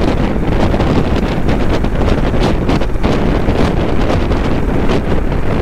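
Steady wind buffeting on a riding motorcycle's microphone, a dense rushing noise at road speed. The mic has lost its foam windscreen.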